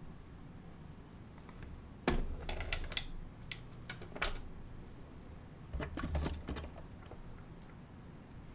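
Two short clusters of light clicks and taps with soft low thuds, about two seconds in and again around six seconds, from small tools and objects being handled and set down on a repair bench.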